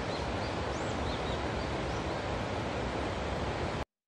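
Steady rushing of a flowing river, with a few faint, high bird chirps in the first two seconds. The sound cuts off abruptly just before the end.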